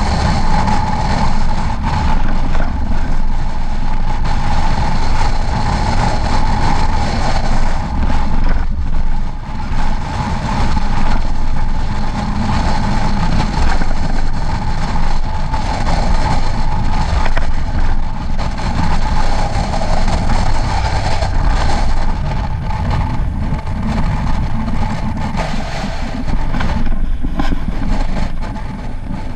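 Engine and road noise of a vehicle driving along: a steady rumble with a steady whine above it, easing a little near the end as it slows.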